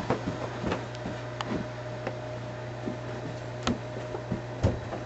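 A steady low electrical hum with a faint higher steady tone, with scattered light knocks and clicks at irregular intervals, the sharpest about a second in and near the end.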